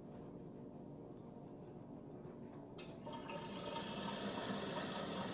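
Steam iron hissing as it is pressed onto fabric, starting suddenly about three seconds in and growing louder.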